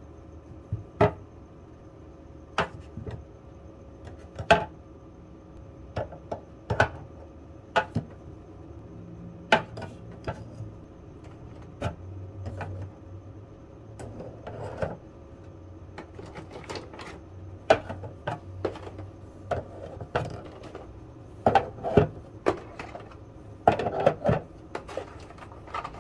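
Eggs being set into a glass baking dish, their shells tapping against the glass and against each other: sharp, irregular clicks, closer together near the end.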